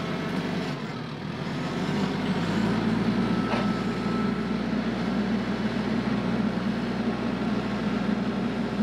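TYM compact tractor's diesel engine running steadily under load as it works in brush, growing louder about two seconds in.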